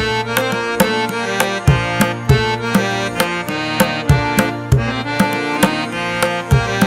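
Background music with a steady percussive beat over held melodic notes.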